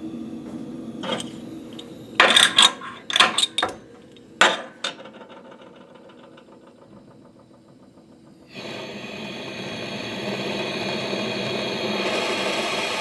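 A jeweller's soldering torch being lit: a few short bursts of sharp clicking strikes from the igniter, then about eight and a half seconds in the flame catches and hisses steadily, getting a little louder near the end.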